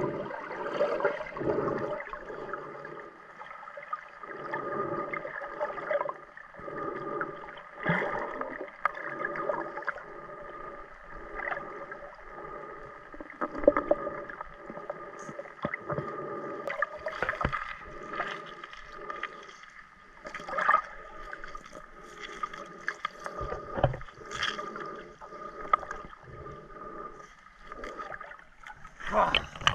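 Muffled underwater sound heard through a waterproof camera housing while snorkel-diving for mussels: water surging and swishing in uneven pulses about once a second, with scattered sharp clicks and knocks.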